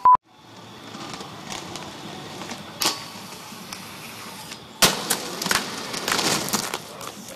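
Inline skates on concrete and metal: wheels rolling, sharp knocks as the skates hit a handrail or ledge and land, and the scrape of grinds, busiest near the end. A loud click opens it.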